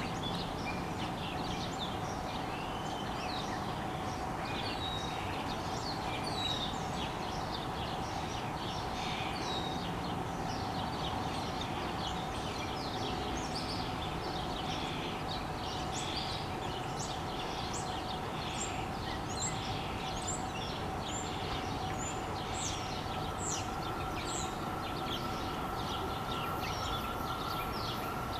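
Songbirds chirping and singing in many short calls over a steady background hum; a second, higher hum tone joins about three-quarters of the way through.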